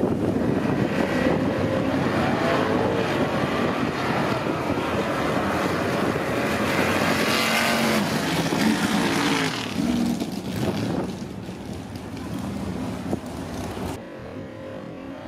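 Pickup trucks' engines revving hard and running at full throttle as they drag race up a snowy hill. The pitch rises and falls, and the sound fades after about ten seconds.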